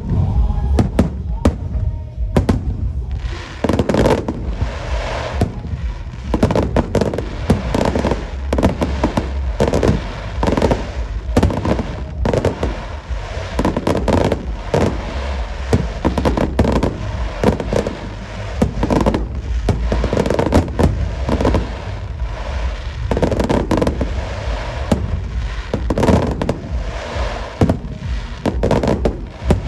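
Aerial fireworks shells bursting in a fast run of loud bangs, at times several a second, over a low rumble that carries between them.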